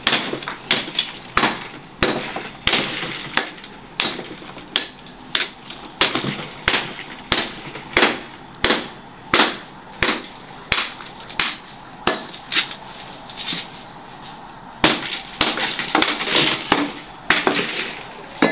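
Hammer blows chipping at the concrete seal of a tomb niche, breaking it open: steady sharp strikes about one and a half a second, with a denser run of knocks and crumbling near the end.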